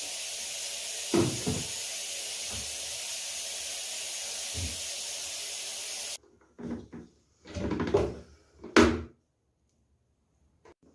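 Water running steadily from a tap with a few dull knocks of things being handled. The water stops abruptly about six seconds in, followed by several clattering knocks over the next few seconds.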